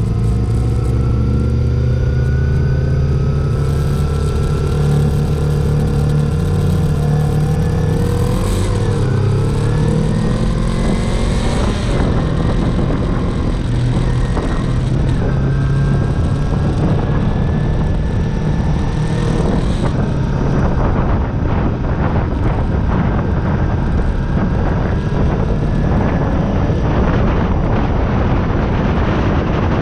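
Motorcycle engine running while riding, its pitch climbing as it accelerates and dropping at gear changes twice near the middle. Wind noise on the microphone grows rougher in the second half.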